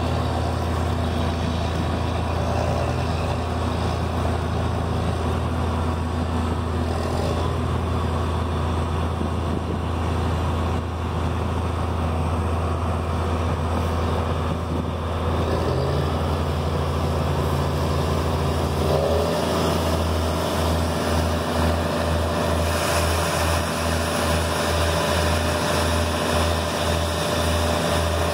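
Diesel engine of a tracked tractor running steadily under load, driving a grain cart's unloading auger as corn goes into a semi's grain trailer: a low, even drone with a faint higher whine. About two-thirds of the way through, the low drone starts pulsing about twice a second and a higher hiss grows.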